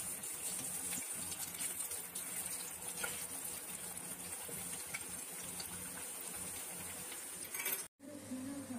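Pakoras deep-frying in hot oil in a karahi: a steady crackling sizzle, with a few light clicks of a slotted spoon in the pan. It cuts off suddenly near the end.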